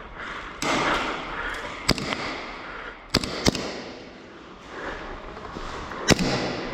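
Airsoft guns firing single shots: four sharp cracks, two of them in quick succession, over rustling movement noise.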